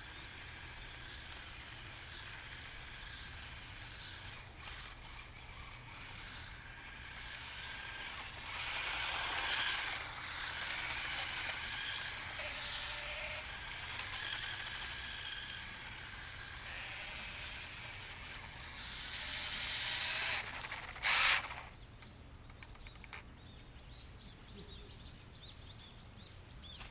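Wltoys A232 1/24-scale electric RC short-course truck running on dirt, its small motor and gears whining and its tyres hissing, rising and falling as it speeds up, turns and passes. There is a loud, brief burst about three-quarters of the way through, then the sound is much fainter.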